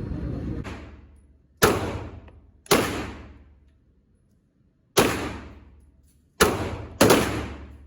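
Five firearm shots at a shooting range, irregularly spaced with the last two close together, each sharp report echoing and dying away over about a second.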